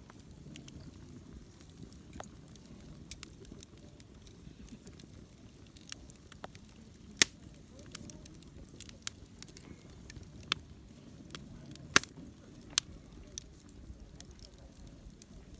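Wood fire crackling, with irregular sharp pops and snaps, two of them much louder than the rest, over a low steady rumble.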